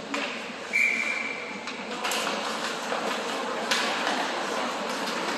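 Referee's whistle blown once, a single steady high note lasting about a second, over the hum of an ice rink. It is followed by two sharp knocks, about two and four seconds in.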